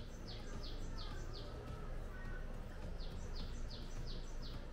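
A bird singing two short phrases, each a quick run of about five high, falling notes, the second phrase starting about three seconds in, over steady low background noise.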